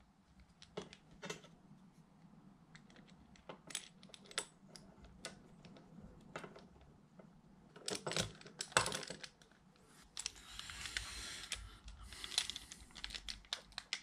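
Scattered small clicks and taps of plastic suspension arms and small metal parts being handled and fitted to an RC car's alloy wheel hub, with a denser cluster of clicks about eight seconds in and a brief scratchy rustle around ten to eleven seconds.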